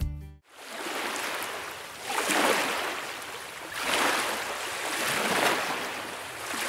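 Sea waves washing in, an even rush that swells and ebbs every second or two. Background music cuts off about half a second in.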